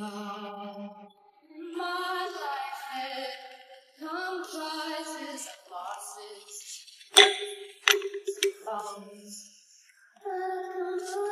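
Background music: a woman singing in short phrases. Three sharp clicks a little past the middle are the loudest moment.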